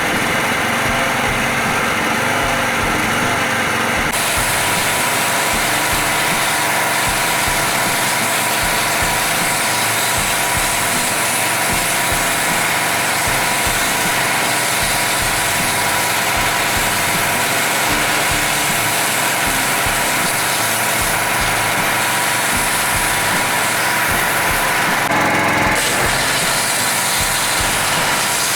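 Small gasoline engine of a pressure washer running steadily while it warms up, just after a replacement carburetor was fitted to cure a fuel leak from a stuck float.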